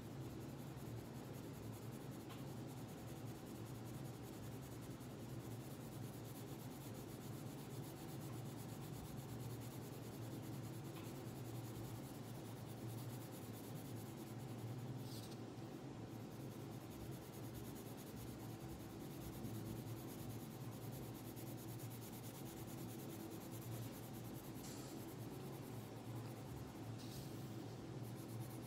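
Coloured pencil scratching on paper in steady back-and-forth shading strokes, over a constant low hum.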